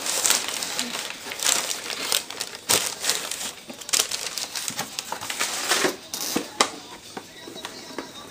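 Tissue paper rustling and crinkling as it is pulled back and a sneaker is lifted out of its shoe box, in a rapid, irregular run of crackles that dies down about six and a half seconds in.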